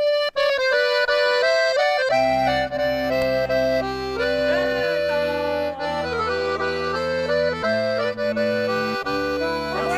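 Accordion (sanfona) playing a slow instrumental melody, with held bass chords from the left-hand buttons coming in about two seconds in and changing every couple of seconds.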